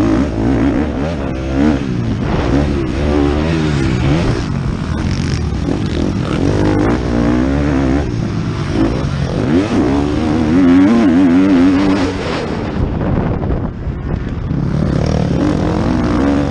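Motocross bike engine revving hard and falling back again and again as the rider works the throttle and gears over the dirt track. About 13 seconds in the engine drops off briefly, then picks up again.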